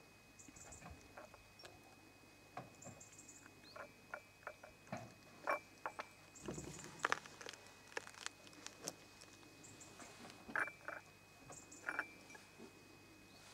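A cat and a kitten eating from a small glass dish: faint, irregular clicks and smacks of chewing and licking, busiest in the middle.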